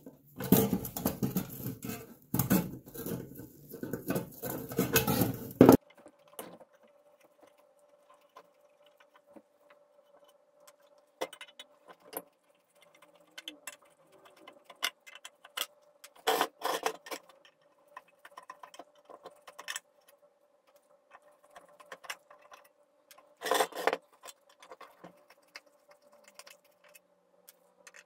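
Metal parts of an old Columbia family scale clinking and clattering as they are handled: dense for about the first six seconds, then only scattered clicks and two short bursts over a faint steady hum.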